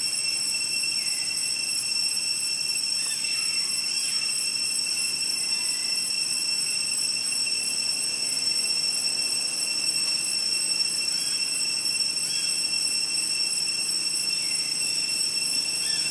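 Insect chorus in forest, a steady high-pitched drone with no breaks, with a few faint short chirps over it.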